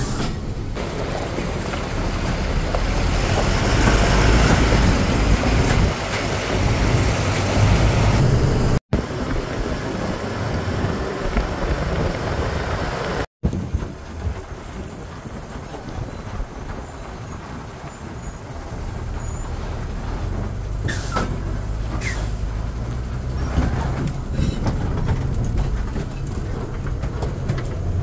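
A loaded lorry's diesel engine runs heard from inside the cab, with the cab rattling and rumbling as it crawls over a rough, potholed dirt road; the sound drops out for an instant twice. Near the end come a couple of short, sharp air-brake hisses.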